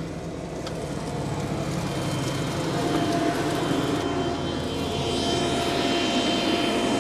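Farm tractor engine running beside a hitched Novag direct-seed drill, a steady hum with a thin whine over it that sets in about three seconds in, growing louder, heard from inside a car.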